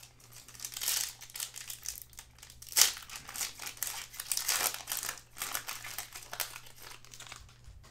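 Foil wrapper of a Panini Chronicles basketball card pack crinkling as it is handled and torn open, with one sharp crackle, the loudest, about three seconds in.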